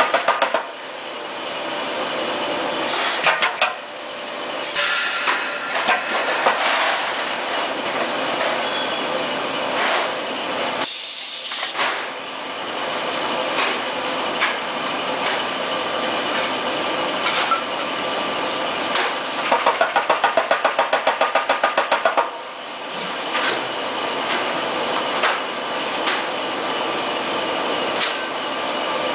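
Green sand moulding machine at work: steady hissing foundry noise with scattered knocks and clatters. About two-thirds of the way through comes a run of rapid knocks, about five a second, lasting nearly three seconds.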